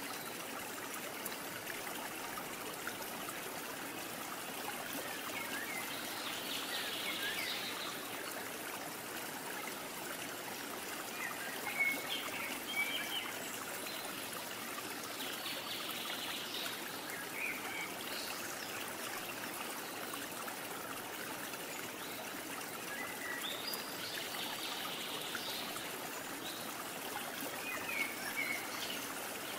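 Steady trickling of a stream, with a few faint bird-like chirps now and then.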